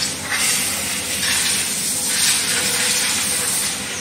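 Pressure-washer jet hissing as it sprays a motorcycle on a wash bay, swelling and easing in several surges about a second long, over a faint steady hum.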